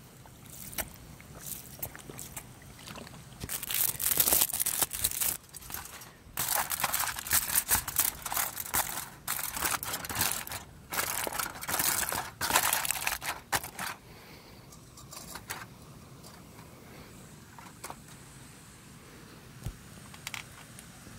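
A sheet of aluminium foil being handled and crumpled by hand, a loud, irregular crinkling that starts a few seconds in and stops about two-thirds of the way through.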